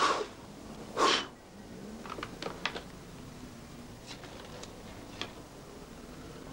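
Two short, loud bursts of noise about a second apart, followed by a scatter of faint sharp clicks and taps over a low room hiss.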